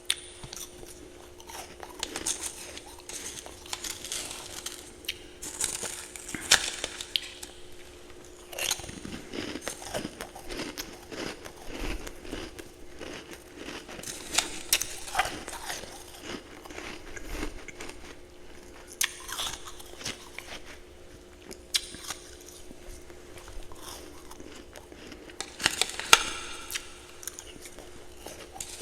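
Ice and frost being bitten and chewed close to the microphone: irregular crunches throughout, with a few louder bites.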